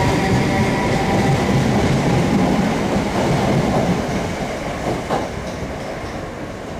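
Passenger train running past close by, wheels clattering over the rails, with a steady noise that fades after about four seconds as the last coach clears. A sharp click comes about five seconds in.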